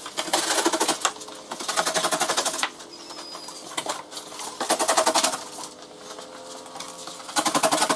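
Cardboard shipping box and polystyrene packing being handled, heard as several bursts of rubbing and scraping with squeaks in between.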